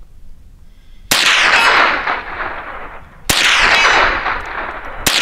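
Three shots from a Sig Sauer 522 semi-automatic rifle in .22 Long Rifle, about two seconds apart, each trailing off in a long echo.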